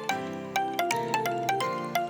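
Background music: a light melody of quick, bell-like notes over held chords.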